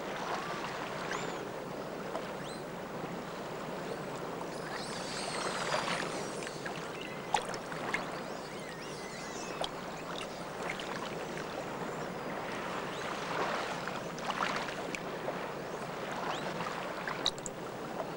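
Steady rush of running water, with a few faint high chirps and small clicks over it.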